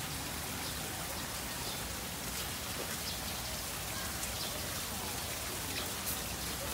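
Steady hiss of falling water with faint scattered ticks and drips.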